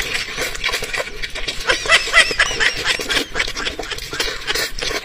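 Close-miked wet eating sounds: chewing, lip-smacking and the squelch of saucy braised chicken torn apart by gloved hands, as a rapid run of clicks and smacks. About two seconds in comes a brief run of short, high squeaky sounds.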